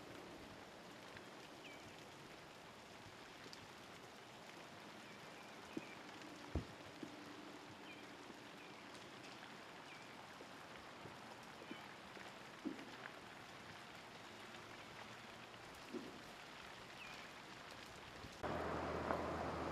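Faint outdoor ambience around ice-coated trees: scattered ticks and clicks like meltwater dripping and bits of ice dropping from the glazed branches, over a soft steady hiss, with a few faint high chirps. About a second before the end it changes abruptly to a louder steady rush with a low hum.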